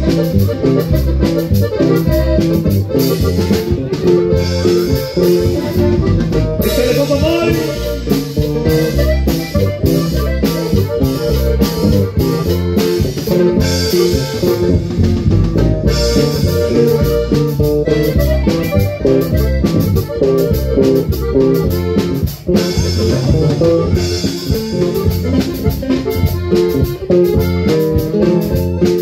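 Live norteño band playing an instrumental passage: button accordion over strummed guitars, bass and a drum kit keeping a steady beat.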